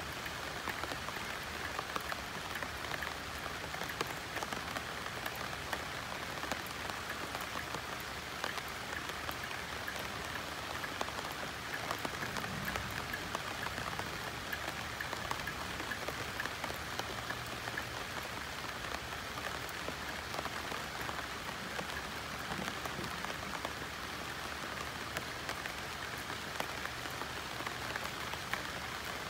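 Steady rain with many separate drops pattering on banana leaves.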